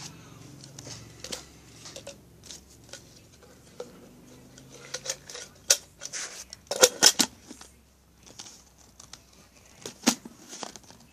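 Handling noise from a phone being gripped and moved: scattered clicks, rubs and taps near its microphone, with a burst of sharper knocks about seven seconds in and another knock near the end.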